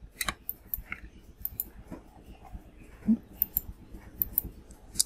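Computer mouse clicking, a string of short sharp clicks at irregular intervals, as brush strokes are placed and dragged in a drawing program.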